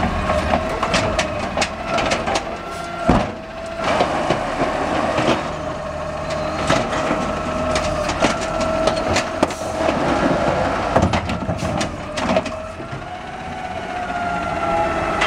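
Automated side-loader garbage truck dumping a recycling cart: the engine and hydraulics run with a steady whining tone while the lift arm grips, raises and shakes the cart, with repeated clanks and knocks and trash dropping into the hopper.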